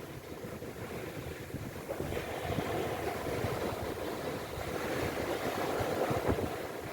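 Sea surf washing in, a steady rushing that swells and eases, with wind on the microphone.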